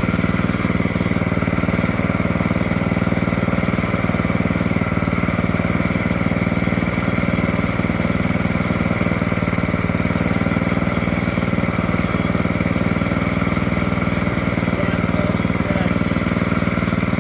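Engine running steadily at one even speed, with no revving or load changes.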